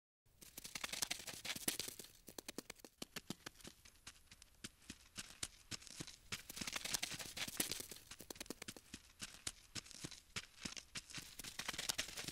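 Insect-crawling sound effect for scuttling ladybugs: a dense run of rapid, dry clicks and scratches that swells and fades in waves.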